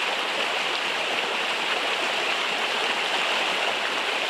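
Small rocky forest stream rushing steadily over stones and little cascades.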